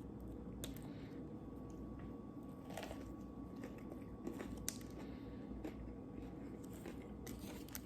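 A person eating a burger: faint chewing with a few soft crunches and clicks scattered through.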